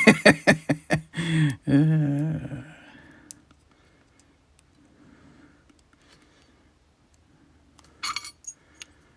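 Sharp metallic clicks and clinks from the Assa Twin Combi 4800 lock and the picking tools being worked in it, quickly repeated in the first second, with a short wordless wavering vocal sound after, then quiet handling and another short burst of clicks near the end.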